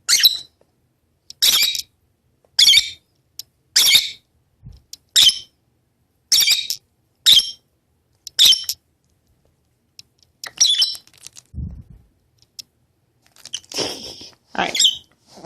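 Pet lovebirds chirping: short, sharp, high calls coming about once a second, with a brief pause about two thirds of the way in and a quick run of calls near the end.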